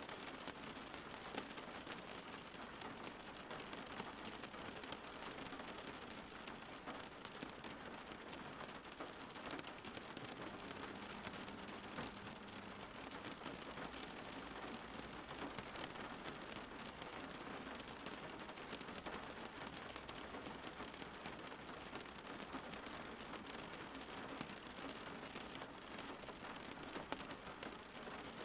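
Steady rain falling, an even patter with scattered individual drops ticking.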